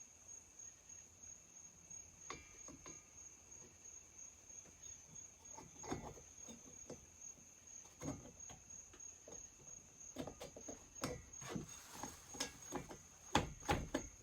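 Crickets chirping steadily. Small metal knocks and taps come irregularly, growing more frequent and louder toward the end, as a ringed chainsaw piston is worked and pushed into its cylinder while the rings refuse to seat.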